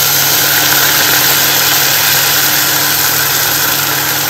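Beef broth ladled slowly into a hot pot of caramelized sugar, garlic and onion, sizzling and bubbling hard and steadily. A steady low hum runs underneath.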